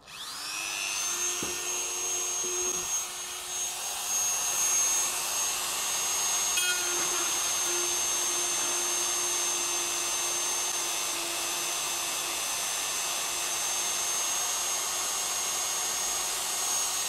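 Small handheld rotary tool spinning up and running steadily with a high whine, its spinning ABS filament tip pressed into a crack in an ABS plastic fairing to friction weld it.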